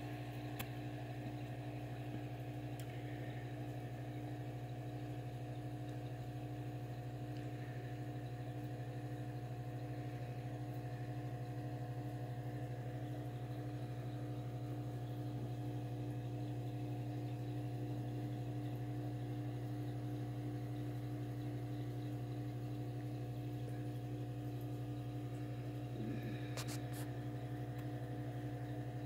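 Steady low electrical hum with fainter higher tones above it, and a couple of faint clicks near the end.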